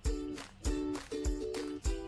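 Background music with a steady beat of about two drum hits a second under sustained chords.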